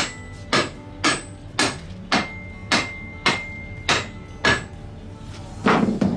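Hammer striking the clamped, epoxy-glued laminates of a new wooden boat frame in a steady series of sharp knocks, about two a second. A heavier, duller knock comes near the end.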